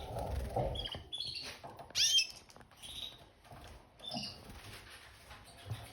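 Red factor canaries giving a few short chirps scattered through the moment, the loudest about two seconds in.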